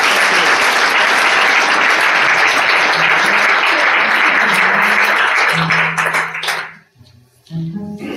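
Audience applauding, dying away about seven seconds in. Under the applause a cello starts playing sustained low notes, and near the end the cello carries on alone.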